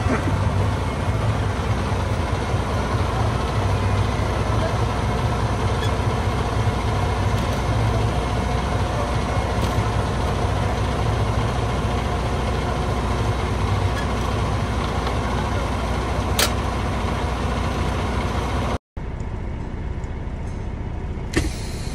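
Diesel engine of a semi truck idling with a steady low running sound. Near the end it cuts off briefly and resumes more quietly.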